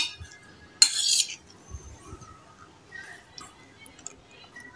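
A metal spoon clinking and scraping against a bowl while mixing dal into rice: a sharp clink at the start and a short scrape about a second in, then faint light taps.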